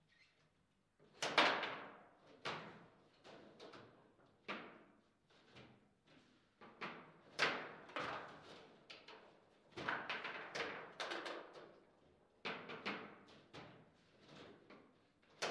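Table football play: an irregular run of sharp knocks and thuds as the ball is struck by the plastic players and bangs off the table walls and the rods are slammed, the loudest about a second and a half in.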